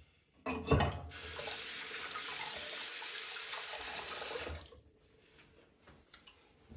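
Bathroom sink tap turned on with a knock and water running into the basin for about four seconds, then shut off.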